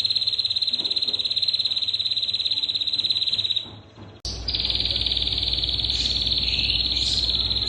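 A steady, high-pitched insect trill, buzzing without pause. It breaks off briefly about four seconds in, then starts again with a few short chirps over it.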